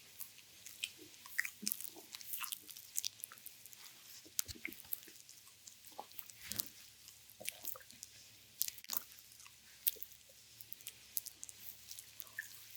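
Hands massaging an oiled bare abdomen, making irregular wet clicks and squelches of skin on skin.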